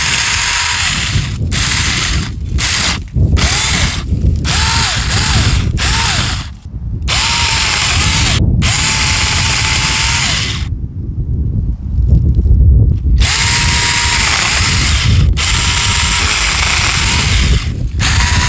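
Saker mini cordless electric chainsaw run in short bursts, its motor whine and chain buzz starting and stopping again and again. The pitch sags and recovers as the chain bites through small saplings and thin fruit-tree branches.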